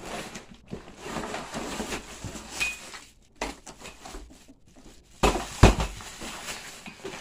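Cardboard box and packaging rustling and scraping as an 18-inch ring light is pulled out of its box, with a loud knock a little over five seconds in.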